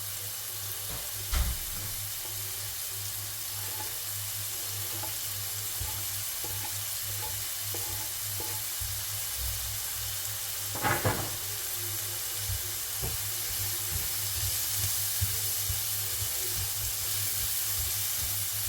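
Onion and garlic frying in oil in a pan: a steady sizzle with light stirring. The utensil knocks sharply against the pan about a second in and twice in quick succession around eleven seconds.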